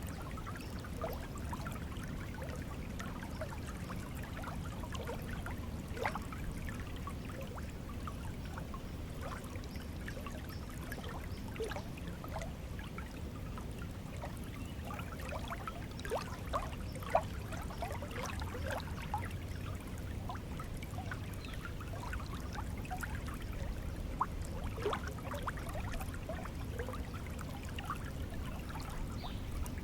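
Stream water flowing steadily: a low, even rush with many small bubbling splashes over it.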